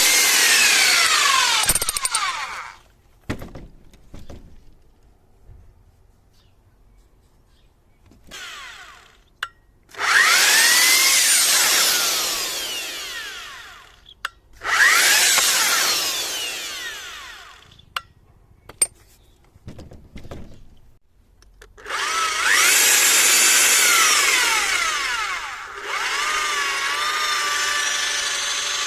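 Hilti TE 76-ATC rotary hammer run in several short bursts, each winding down with a falling whine after the trigger is released. Near the end it runs steadily at a lower pitch.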